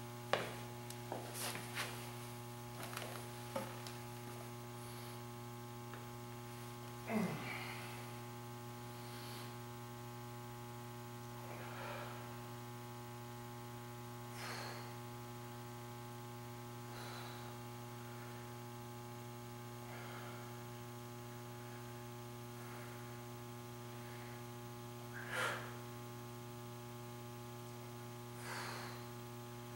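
Steady electrical mains hum, with a few light knocks of dumbbells in the first seconds. It is then joined by short breaths about every two and a half seconds, which fall in time with the man's dumbbell press repetitions.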